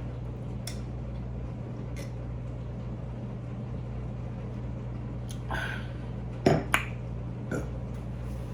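Mouth and eating sounds: a few soft clicks, then a short sharp sound about six and a half seconds in, over a steady low hum.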